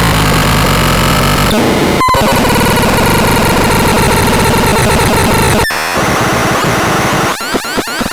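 ABSURDON X1 BAX BOX electronic noise box putting out loud, dense, harsh noise that cuts out for an instant twice. Near the end it breaks into stuttering, sweeping squeals.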